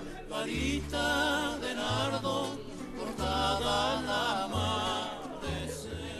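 Background music: a Spanish-language song, with singing over a bass line that steps to a new note about every second.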